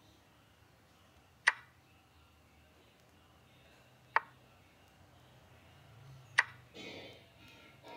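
Chess app's move sound effect: three sharp wooden clicks of a piece being set on the board, two to three seconds apart.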